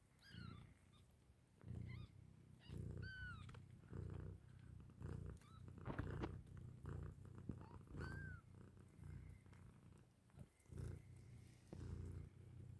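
Faint cat purring that pulses about once a second, breath by breath. A few short, high, arching squeaks from day-old kittens come through it, the clearest near the start, about three seconds in and about eight seconds in.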